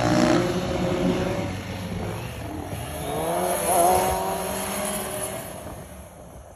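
Sportbike engine revving during wheelies, its pitch rising and falling with the throttle, loudest early on and again around four seconds in, then dropping away near the end.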